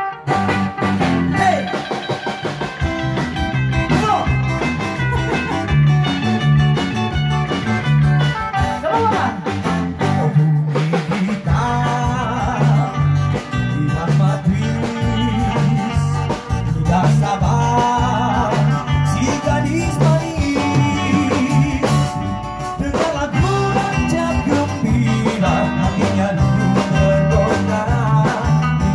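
Live band playing an upbeat dance number: an electric guitar carries the melody over a bouncing bass line and a drum kit beat.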